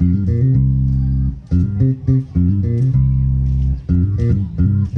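Electric bass guitar played loud through a PA during a band soundcheck: a short low riff repeated over and over, with brief gaps between phrases.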